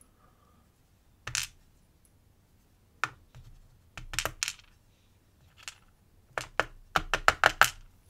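Small brass lock pins and a brass cylinder plug clicking and tapping against a plastic pinning tray as a Yale Bicentric lock core is taken apart. There are scattered single clicks, then a quick run of clicks near the end.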